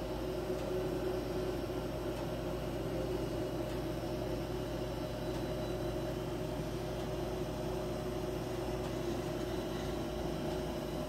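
Steady droning hum over a hiss, with two held low tones.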